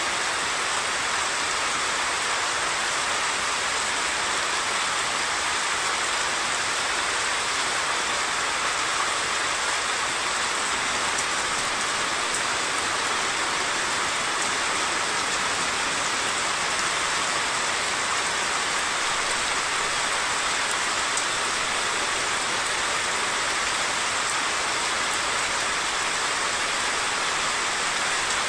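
Heavy monsoon rain falling in a steady, even hiss, with the rush of a swollen, flooded stream mixed in beneath it.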